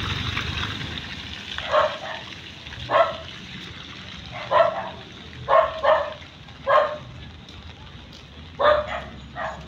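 A dog barking repeatedly, about eight short barks at uneven intervals, some in quick pairs.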